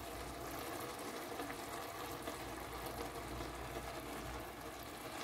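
Faint, steady sizzle of bok choy cooking in its own released water in a frying pan.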